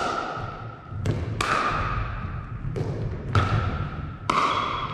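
Pickleball rally: paddles striking a hollow plastic pickleball back and forth, with the ball bouncing on a wooden gym floor. There are about six sharp pocks, roughly half a second to a second apart, each with a short ring that carries on in the large hall.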